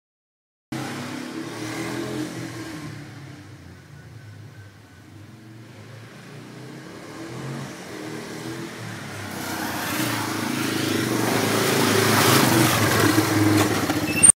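Quad bike (ATV) engine. It starts suddenly, fades to its quietest about four to five seconds in, then grows steadily louder as the quad drives toward the listener, and cuts off suddenly at the end.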